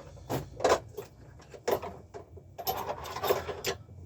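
Rummaging for an Allen key among hand tools: a few separate clicks and knocks, then a busier run of rattling and scraping for about a second near the end.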